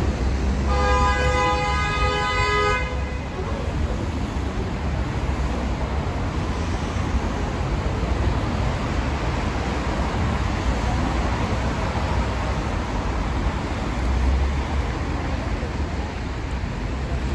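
A vehicle horn sounds once, held steadily for about two seconds near the start, over the steady rumble of street traffic that goes on afterwards.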